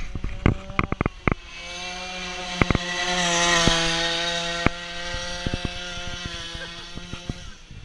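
Go-kart's small two-stroke strimmer engine running at steady high revs as the kart drives past, growing louder to a peak about halfway and then fading away. A few sharp knocks in the first second or so.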